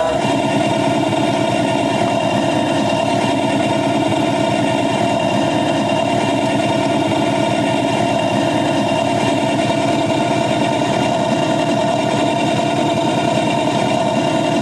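A miniature 7½-inch-gauge train's locomotive running steadily with a fast, even pulse, heard from aboard the moving train. It starts abruptly, without fading in.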